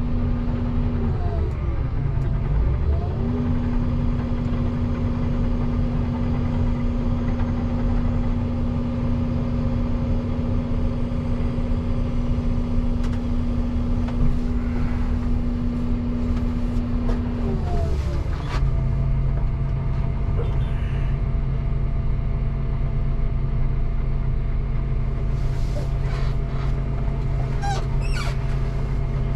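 Volvo excavator's diesel engine running steadily, heard from inside the cab. Its note dips and comes back about a second in, then drops to a lower steady note about eighteen seconds in.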